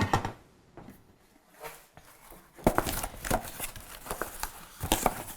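A couple of knocks at the start, then packaging crinkling and tearing from about three seconds in as a cooker pan is unwrapped.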